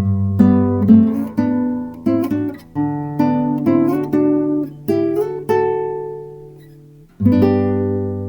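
Fingerstyle acoustic guitar: a melody of plucked notes over bass notes, a held chord left to ring and fade, then a new chord plucked near the end.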